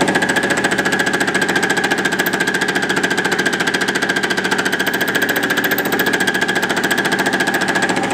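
Milling machine's boring head fly-cutting a steel drill-rod cam blank in an interrupted cut: the cutter strikes the work once per spindle turn, giving a loud, fast, even hammering chatter with a ringing metallic tone over the motor's hum. It cuts off abruptly at the end.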